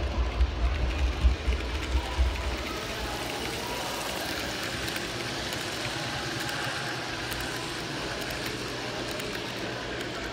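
N-scale model trains running on the layout track: a steady hum with faint clicking from the wheels. A heavy low rumble sits under it for the first two seconds or so, then fades out.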